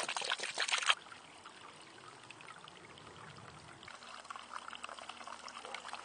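Water pouring from a valve on PEX tubing and splashing into a glass measuring cup; the flow stops abruptly about a second in, leaving faint trickling.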